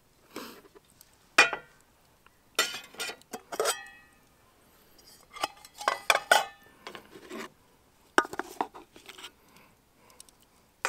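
Metal cutlery clinking and scraping against a camp plate and a metal camp cooking pot while sausage is cut and mixed into pasta. The clinks come in short clusters, some with a brief metallic ring.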